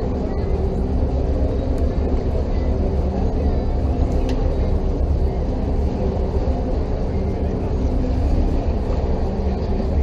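Catamaran's engine running at a steady pitch, with water rushing beneath the hulls.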